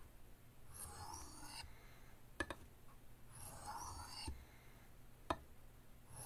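A knife blade is drawn lightly along the burnished face of a soft Arkansas oilstone in slow, faint scraping strokes, one about every two and a half seconds and each lasting about a second. Two sharp clicks fall between the strokes. This is the refining stage, for a finer edge.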